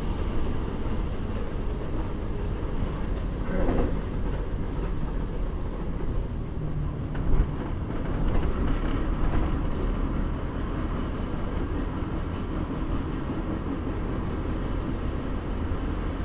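Steady low rumble of a passenger vehicle in motion, heard from inside, with a short sharp knock about seven seconds in.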